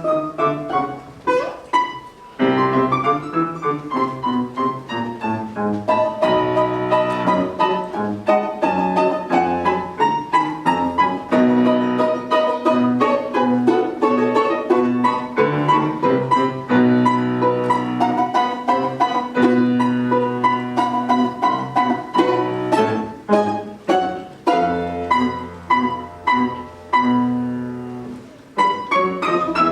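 Live classical performance of a solo instrument with piano accompaniment, playing a lively piece of many short, quick notes with some held notes.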